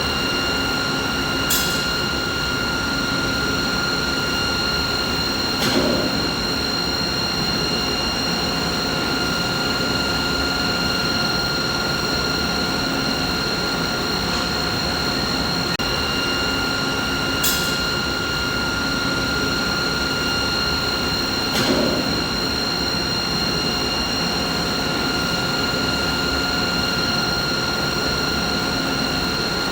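Steady machinery noise: a dense hum with several steady whining tones on top, broken by four short clicks.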